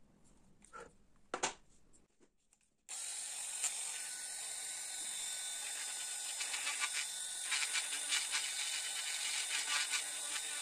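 A couple of faint clicks of a small hand gouge cutting linden wood, then, about three seconds in, a small handheld rotary tool comes in with a steady high whine, its thin bit grinding into the wood with a rough rasping that grows more crackly toward the end.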